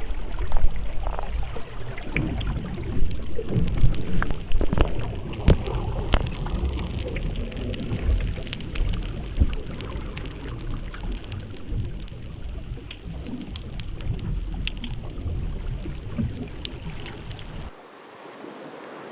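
Underwater recording from Antarctic waters: a heavy low rumble thick with sharp clicks and crackles. Near the end it gives way to a quieter, steady hiss.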